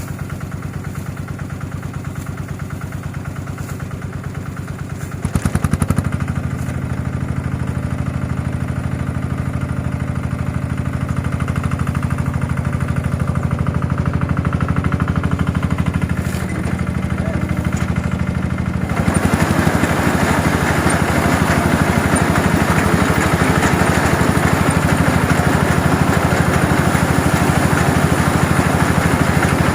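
Engine of a QUICK QH 11 mini rice harvester running steadily. It steps up in loudness about five seconds in. From about nineteen seconds in, a louder, rougher mechanical noise joins it and carries on.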